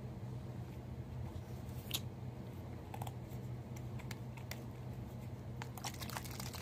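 A bottle of guitar cleaning cream being handled and shaken: scattered small clicks and taps, coming thicker near the end, over a steady low room hum.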